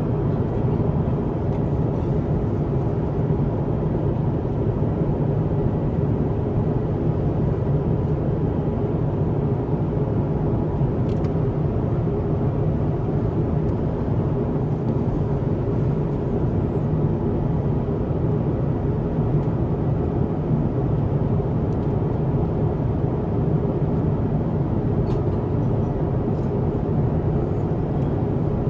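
Steady low rush of airflow and engine noise inside an Airbus A350-1000's cabin in flight, unchanging throughout.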